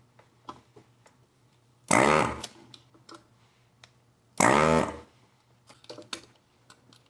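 Electric desoldering gun's vacuum pump buzzing twice, about two seconds in and again about four and a half seconds in, each burst about half a second long, sucking the solder off a capacitor's leads. Light clicks of handling in between.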